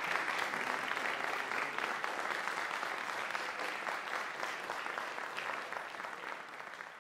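Audience applauding, the clapping gradually thinning and growing quieter toward the end.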